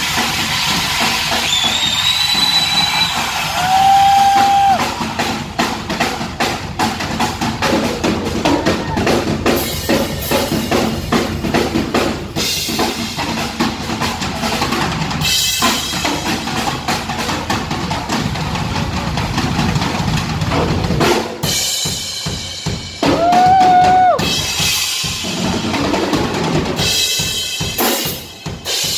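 Live drum solo on a Tama kit with two bass drums: rapid strokes on snare, toms and bass drums with cymbals, breaking into more separated accented hits near the end. A short steady high tone sounds twice, about four seconds in and again about three-quarters of the way through.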